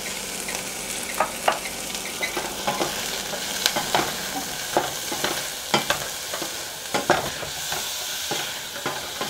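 Broccoli florets and onion sautéing in butter in a stainless steel saucepan, a steady sizzle, while a wooden spatula stirs them and knocks against the pan at irregular intervals.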